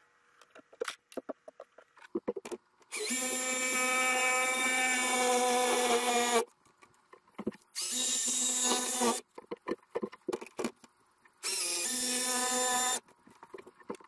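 Cordless jigsaw cutting through a wooden shed wall in three runs, a long one of about three seconds and two shorter ones, trimming the edge of a cut opening straight. Clicks and knocks of the saw and a square being handled come between the runs.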